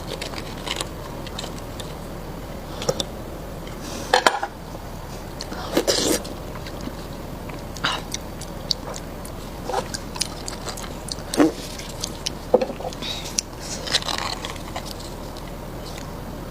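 Close-miked eating of beef bone marrow: scattered bites, chewing and mouth smacks, with short clicks and a sharp knock about four seconds in.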